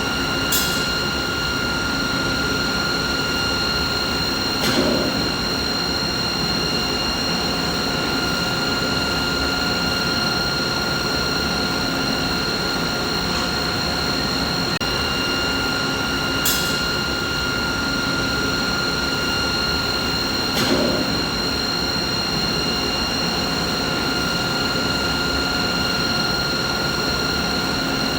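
Steady hum of running machinery: a constant noisy drone with a steady high whine over it. Brief clicks come four times, in a pair that recurs about sixteen seconds later.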